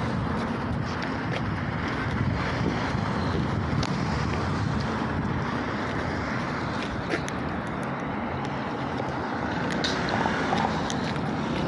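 Outdoor noise: a fluctuating rumble of wind on the phone's microphone over steady city traffic, with a few faint clicks near the end.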